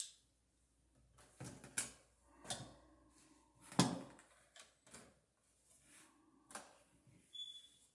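Hand tools clicking and knocking as they are handled and dropped into a tool pouch: a string of irregular clicks and clatters, the loudest about four seconds in.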